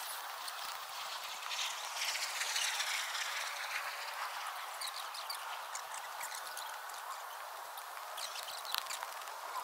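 A spade scraping and knocking in loose soil and snow, with scattered short clicks and knocks.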